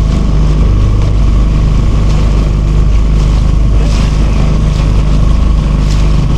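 Small motorboat's engine running steadily at a constant speed, a loud low drone with no change in pace.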